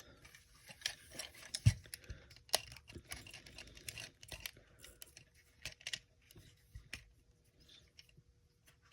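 Plastic toy parts being handled and clicked into place: a string of irregular small clicks, snaps and rustles, with the sharpest snaps about two and two and a half seconds in, as a Transformers Optimus Prime figure is transformed by hand.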